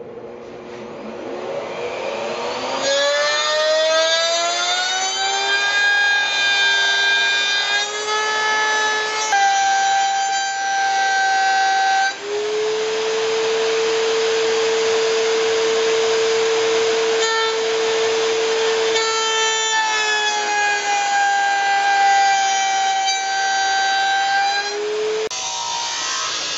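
Table-mounted router spinning up with a rising whine, then running steadily while its bit trims the edge of a round wooden barrel head. The whine shifts pitch a few times as the cut loads it, and a rougher cutting noise comes through in the middle.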